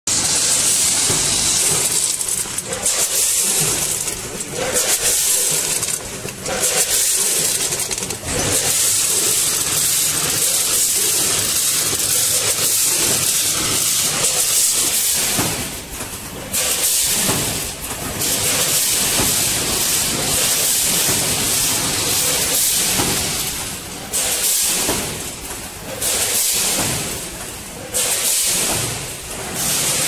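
A 10-head multihead weighing and packing machine running, heard as a loud steady hiss with short dips every couple of seconds.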